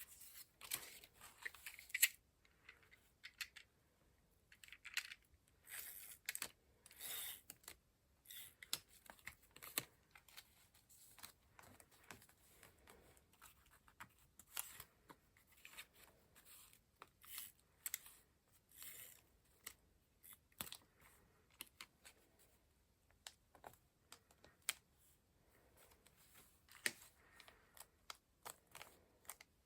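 Quiet paper-crafting sounds: paper and card being handled, rustled and slid, with many light clicks and taps of tools on the paper.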